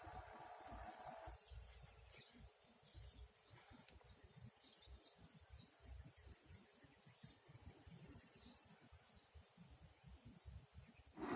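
Crickets or other insects chirring: a steady high, finely pulsing trill, faint against a low rumble. A mid-pitched hum fades out about a second in.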